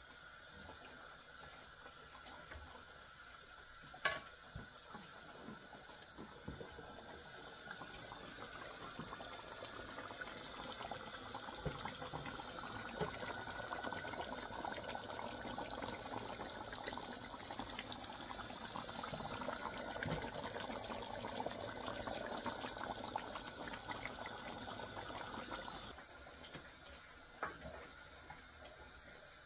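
Water running, building up over a few seconds and holding steady before it stops abruptly a few seconds before the end. A single sharp click comes about four seconds in, before the water starts.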